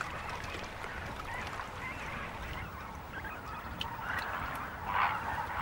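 A flock of flamingos honking, a steady din of many calls that grows louder about four seconds in.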